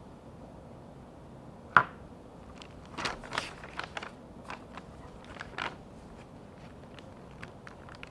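Paper pages of a small book being turned and flicked by hand: a single sharp click a little under two seconds in, then a quick run of paper rustles and flicks over the next few seconds, and a few faint ticks after.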